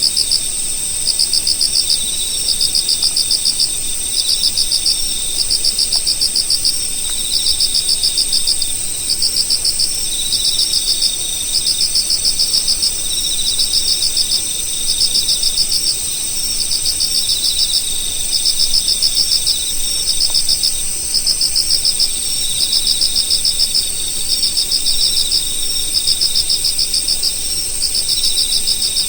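Chorus of singing insects: a steady high-pitched trill underneath repeated phrases of rapid chirping pulses, about one phrase a second.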